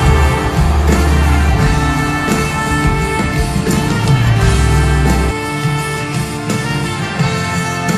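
Background music: a full instrumental track with a heavy bass line that drops out about five and a half seconds in.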